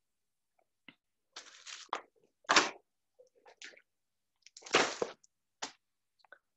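Clear plastic sleeves holding old magazine covers crinkling as they are handled, in a few short bursts with small clicks between, the loudest about two and a half and five seconds in.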